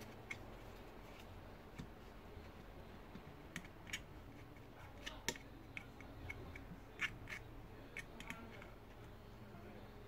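Faint, irregular clicks and taps of a hand tool against a circuit board while flux paste is spread over a chip.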